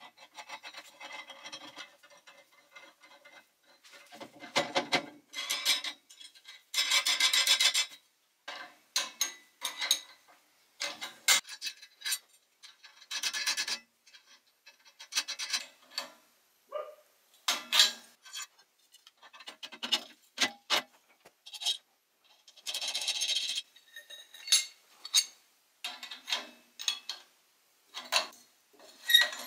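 Nuts and a handwheel being fitted by hand onto a steel threaded rod and frame, giving irregular short scraping bursts and sharp metal clinks.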